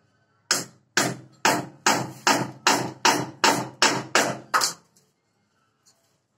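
Hand hammer striking a small metal tool held against a ceramic wall tile, eleven sharp strikes at about two and a half a second, each with a short metallic ring.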